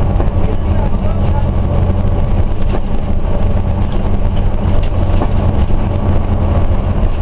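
Scania OmniCity single-deck bus's diesel engine and running gear heard from inside the passenger saloon while the bus drives along: a steady low drone with occasional short clicks.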